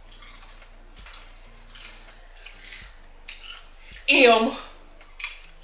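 Faint clicks and rustles of fingers picking fries and food off plates, then, about four seconds in, a woman's short loud vocal exclamation that falls in pitch.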